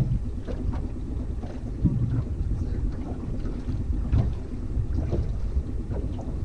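Small kicker outboard motor running steadily at trolling speed, a low drone, with wind noise on the microphone.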